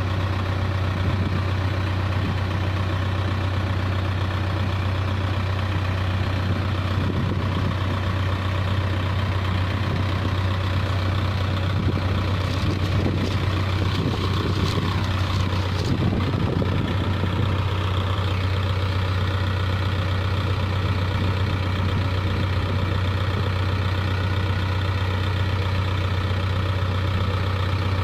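Case backhoe loader's diesel engine running steadily, with a wavering rise and fall in pitch and some sharp knocks about halfway through as the machine works.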